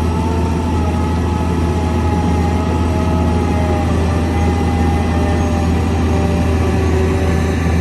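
Heavy construction machine's engine running steadily: a loud low hum with faint whining tones that slowly fall in pitch.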